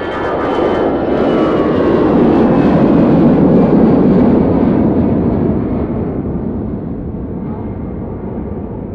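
Airbus A320 jet airliner taking off and climbing away at takeoff thrust. The engine roar swells to its loudest about three to four seconds in, then fades as the aircraft climbs away, while the engines' whine falls in pitch as it passes.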